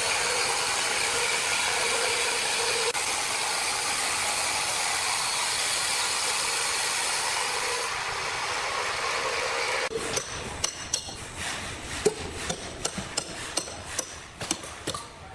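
Sawmill power saw cutting through wood with a steady, dense noise. About ten seconds in, the cutting gives way to a run of sharp, irregular knocks and clatters of wood or tools being handled.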